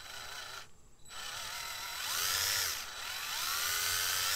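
Cordless drill with an 11/64 bit drilling a pilot hole through a plastic kayak backband ratchet strap. The motor whine rises and falls in pitch as the speed varies, with a short break just before a second in.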